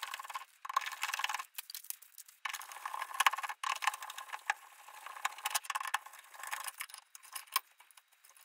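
Sped-up hand work taking apart a wall light switch: a fast run of clicks, rattles and scrapes from the screwdriver, screws, plastic cover plate and switch against the metal box. The sound has a thin, high quality from the speed-up, with a few short breaks.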